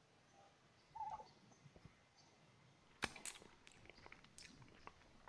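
Near silence with faint handling noises: a short squeak about a second in, then a sharp click about three seconds in followed by a run of lighter clicks, as hands move over the plate and up to the lens.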